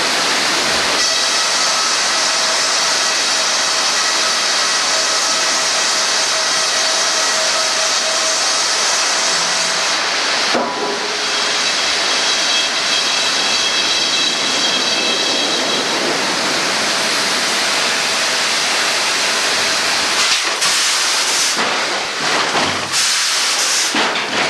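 Sawmill machinery running: a loud, steady hiss with a faint high whine, which shifts about halfway through and breaks up into uneven noise near the end.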